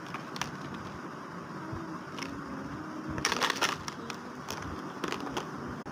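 Clear plastic packaging crinkling and clicking as it is handled, with a louder burst of crackling about three seconds in.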